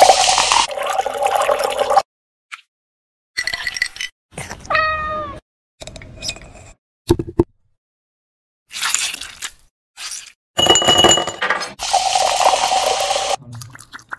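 Drink-making sounds in short bursts with silent gaps: Sprite poured over ice into a glass, a steel muddler crushing cherry tomatoes in the glass, and more liquid poured in near the end.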